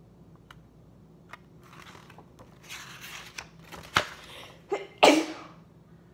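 Paper pages of a picture book rustling as they are turned, then a woman sneezes loudly about five seconds in.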